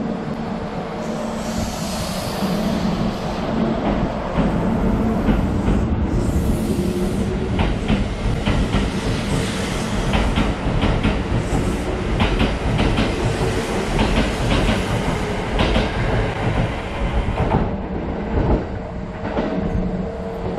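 Kintetsu 21000 series Urban Liner Plus electric limited express pulling out of the station past the listener, with a steady motor hum and wheels clacking over rail joints as the cars go by. The clacking thins out near the end as the last car passes.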